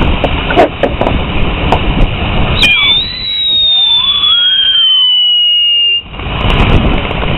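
A firework going off with a loud rushing hiss and crackle. About two and a half seconds in it gives a shrill whistle that slides slowly down in pitch for about three seconds and cuts off suddenly, and then the hissing comes back.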